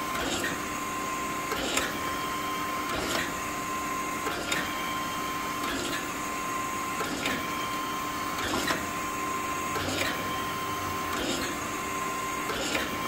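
Okamoto 124N surface grinder's table reciprocating on a short stroke, with a clunk each time it reverses at the table dogs, about every second and a half. A steady whine from the running machine sits under it.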